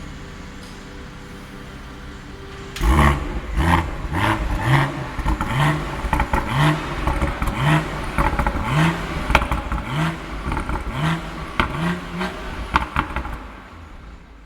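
BMW X3 M40i's stock turbocharged 3.0-litre inline-six idling, then suddenly blipped, about ten quick revs roughly once a second, with sharp cracks between the blips, before dropping back near the end.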